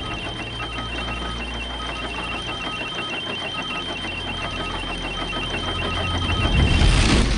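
Documentary sound-design bed: a steady high tone with irregular on-off beeping over a low hum, swelling into a whoosh near the end.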